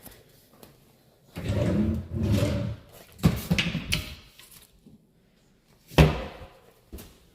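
Doors being opened and shut by hand: a rumbling slide and clatter, then a sharp bang about six seconds in and a small click near the end.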